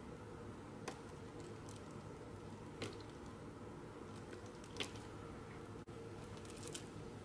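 Quiet kitchen handling sounds over a steady low hum: three soft clicks about two seconds apart, then a few faint ticks near the end, as mandarin gelatin mixture is poured from a pan into a loaf tin lined with plastic wrap.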